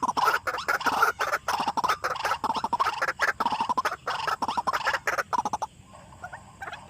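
White-breasted waterhens calling, a fast run of harsh, repeated 'wak' notes that breaks off about five and a half seconds in and starts again right at the end.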